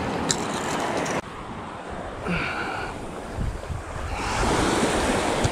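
Small waves breaking and washing up on a sandy shore, with wind buffeting the microphone; the surf wash swells up over the last second or so. A brief high-pitched call sounds about two seconds in.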